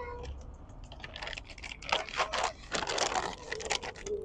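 Plastic dog-food bag crinkling and crackling as it is gripped and tugged at to open it, a quick irregular run of crackles that gets busier about two seconds in.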